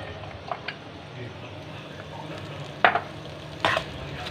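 Shredded boiled chicken sizzling in oil in a wok over a high flame, with a wooden spatula stirring it; two sharp scrapes of the spatula on the pan near the end.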